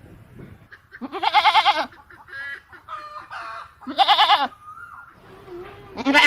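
Goat bleating: three loud, quavering bleats about one, four and six seconds in, with quieter calls between them.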